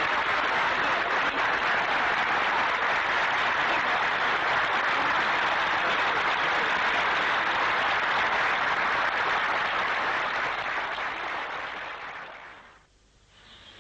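A large crowd applauding steadily, dying away near the end.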